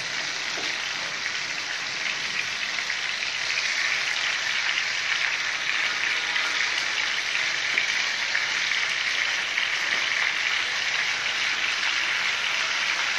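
Pieces of marinated chicken sizzling in hot oil in a frying pan: a steady hiss that grows a little louder a few seconds in as more pieces go into the pan. The hiss comes from water released by the marinated meat meeting the hot oil.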